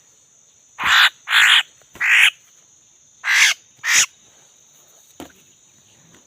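Laughingthrushes giving a series of five harsh, rasping calls in quick succession, over a steady high-pitched insect drone.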